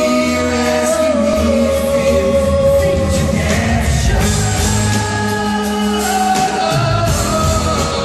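Male pop vocalists singing live into microphones over a strummed acoustic guitar, with long held notes, recorded from the audience.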